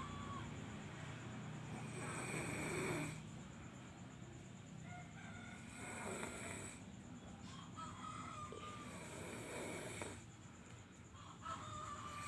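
A man snoring in his sleep: slow, rough breaths that swell and fade, repeating a few seconds apart.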